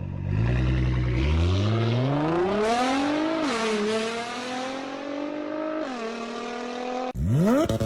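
Performance car engine and exhaust revving: a low idle, then the revs climb steeply for about two seconds, drop back sharply, rise slowly and drop again. Near the end it cuts abruptly to a different sound with a fast rising sweep.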